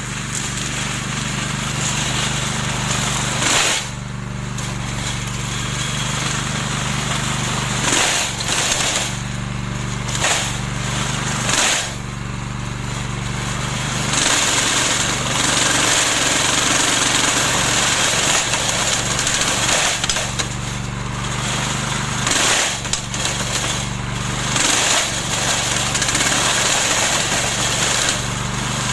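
Remote-control lawn mower running steadily with its cutting blade spinning; the sound dips briefly several times and then picks up again.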